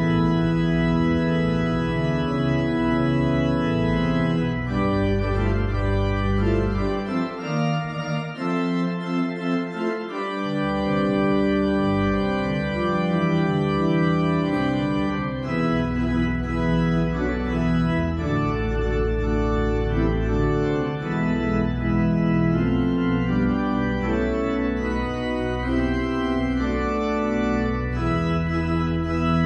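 Church organ playing slow, sustained chords over deep pedal bass notes, the bass dropping out for a few seconds now and then: music at the opening of the worship service.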